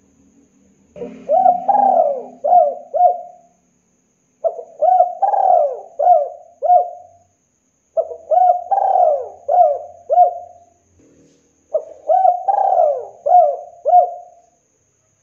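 Spotted dove cooing: four phrases of about five short coos each, a few seconds apart.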